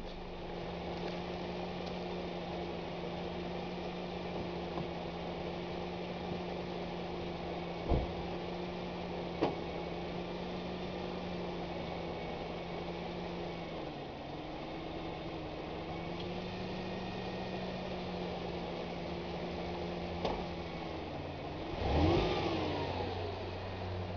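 Mercedes-Benz W203 C200 Kompressor's supercharged four-cylinder engine idling steadily. Two sharp knocks come about eight and nine and a half seconds in, and the engine note dips briefly twice. A short, louder sound with a gliding pitch comes a little after twenty-two seconds.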